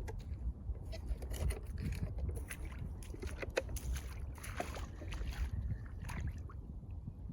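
Water splashing and sloshing, with irregular clicks over a steady low rumble.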